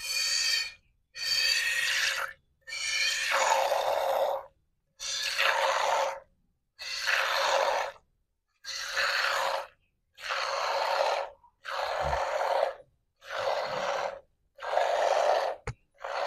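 Milk squirting from a goat's teat into a steel tumbler under hand-milking, a hissing spray with each squeeze, repeating about ten times at an even rhythm of roughly one squeeze every second and a half. A short sharp click comes near the end.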